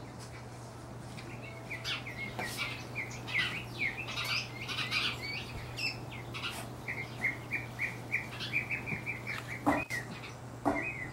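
Small birds chirping in quick repeated short notes over a steady low hum. A few brief rustles and scuffs come from a small dog ripping into a dog bed and shaking its polyester stuffing, the sharpest near the end.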